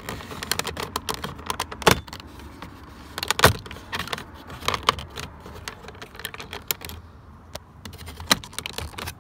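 Hard plastic clicking and rattling as a power door lock switch is pried by hand out of a Ford F-150's door trim, with two sharp snaps about 2 s and 3.5 s in.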